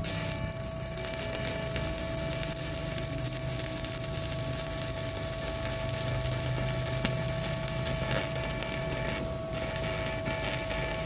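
Stick-welding arc from a 4 mm E6013 electrode on a WeWeld ARC 220 inverter welder set to 130 amps, crackling steadily, with a short break about nine seconds in. At this low current the 4 mm rod still burns, but the arc is somewhat weak.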